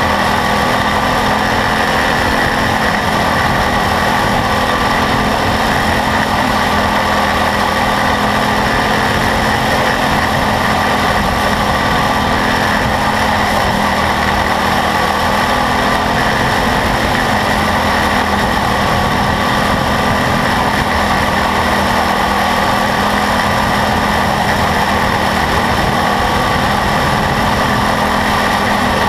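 Quarter midget race car's single-cylinder engine running hard at a steady speed, heard close up from a camera mounted on the car: a loud continuous drone that barely changes pitch through the laps.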